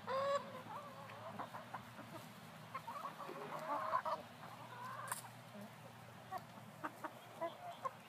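Hens clucking while they peck at corn cobs, with a rising call at the very start and a few sharp pecking taps in the second half. A low steady hum runs underneath.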